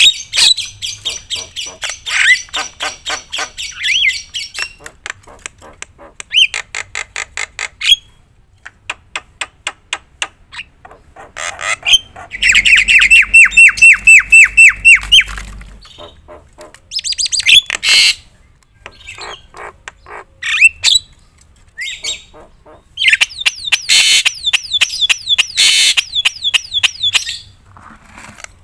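Javan myna singing loudly and continuously, a varied song full of mimicked phrases: runs of rapid clicking rattles, harsh squawks and short whistled glides. About halfway through comes its loudest part, a fast trill of evenly repeated notes lasting a few seconds.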